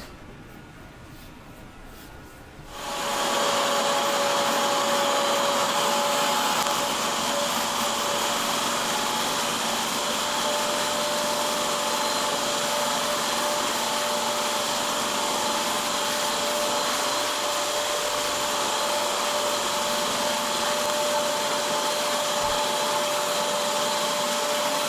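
Prolux upright carpet and upholstery shampooer's motor switching on about three seconds in and running steadily, a whine over a rushing hiss, as its hose hand tool works over fabric.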